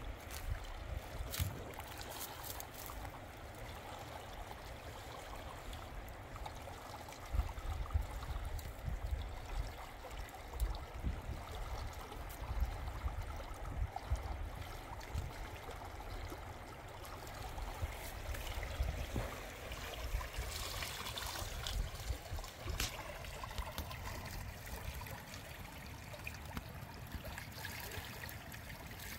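Water running steadily in a small irrigation channel, with occasional splashing as a plastic bowl of green grapes is dipped and rinsed in the current.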